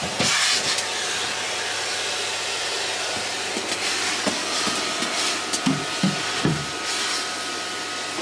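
Vacuum cleaner running steadily, with a thin whistling tone joining about halfway and a few knocks near the end.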